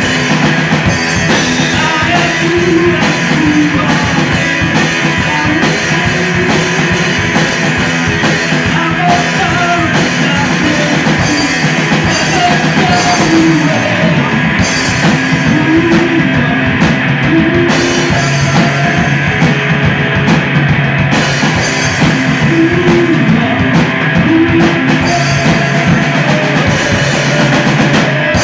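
A live rock band playing loud, with a drum kit, in the middle of a song.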